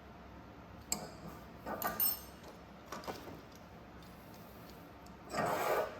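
Small metal parts handled and set down: a click about a second in, a brief run of ringing clinks, another click, and a short scrape or rustle near the end.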